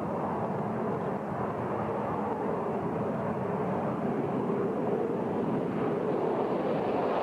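Saab JAS 39 Gripen fighter's single jet engine running on the runway: a steady, even rush of jet noise.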